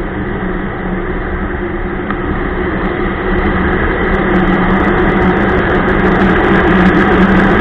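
Ski-Doo Expedition LE snowmobile engine running steadily while under way, growing louder from about three seconds in.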